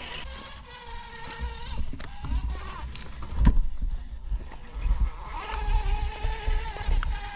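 Electric motor and gear drive of a scale RC rock crawler whining as it climbs over rocks, the pitch rising and falling with the throttle. Low thuds and knocks run under it, with a sharp knock about three and a half seconds in.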